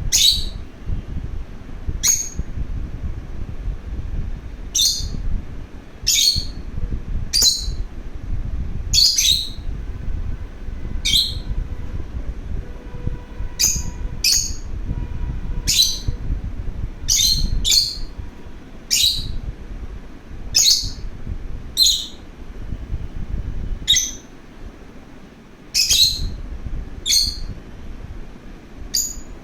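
Pet lovebird giving short, shrill chirps, one every second or two, over a low rumble.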